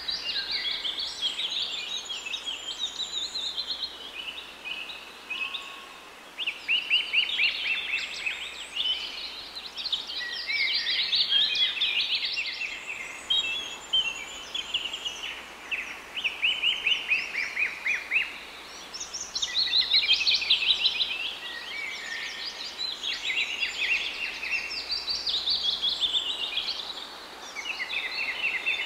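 A chorus of small birds chirping and trilling, several songs overlapping in bursts of fast repeated high notes.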